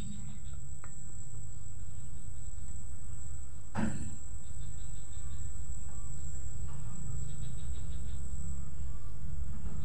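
Homemade 12-volt fish-shocker inverter (setrum PAC) humming steadily through its transformer, with a faint high whine above. A single sharp click comes about four seconds in as a capacitor lead is joined to the output.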